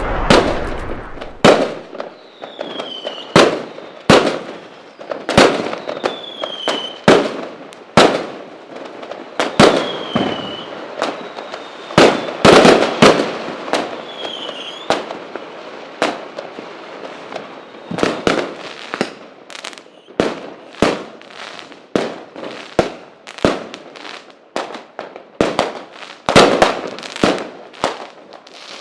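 Fireworks going off: a rapid run of sharp bangs, each with a short crackling tail, one to three a second, with a few short falling whistles among them.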